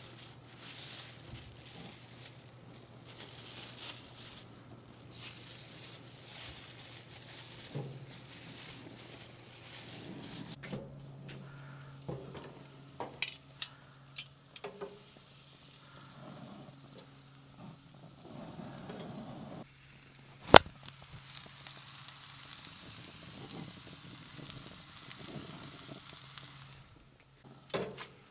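Chicken kebabs sizzling on a gas grill, a steady hiss that grows stronger near the end. A few clicks come around the middle, and one sharp click about two-thirds of the way through is the loudest sound.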